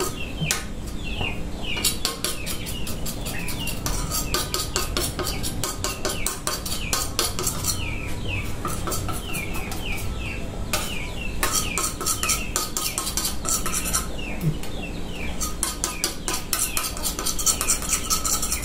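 Knife and utensils clicking and scraping on a kitchen work surface in quick runs while bread dough is cut and handled. A bird chirps over and over in the background with short falling notes.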